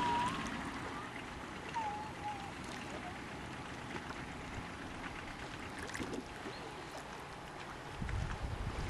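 Loch water lapping and trickling against a dock, a steady wash, with a low rumble coming up near the end.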